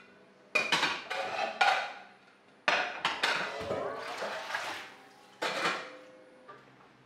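Stainless steel pots and bowls clanking against one another as they are handled and washed up, about six sharp metal clanks, each with a short ring.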